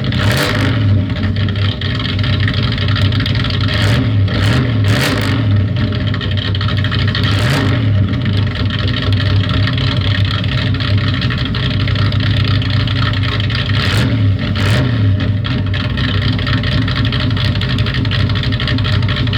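358 cubic-inch V8 in a 1991 Chevrolet Camaro Z/28 running loud and steady, with a deep exhaust note and a few brief sharp cracks in the first eight seconds and again around fourteen seconds in.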